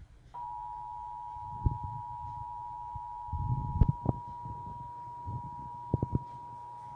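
Emergency Alert System dual-tone attention signal: two steady tones sounding together. They start about a third of a second in and hold without a break. Several low thumps and knocks are heard under it, the loudest around the middle and about two-thirds of the way in.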